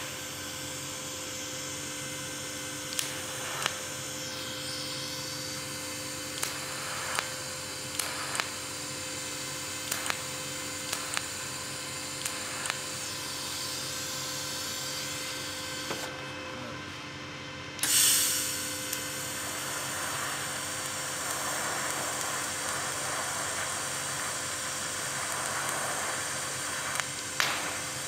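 TIG welding arc on stainless steel from a Vevor TIG 210A inverter welder: a steady buzzing hiss over the machine's hum, with small sharp ticks now and then. About two-thirds through the hiss briefly drops out, then comes back with a loud burst and runs on rougher and hissier. The machine is set a little too hot for the joint, which the welder himself thinks.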